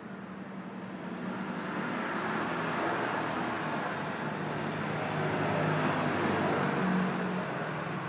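Background traffic noise: a steady low engine hum under a broad rushing sound, growing gradually louder.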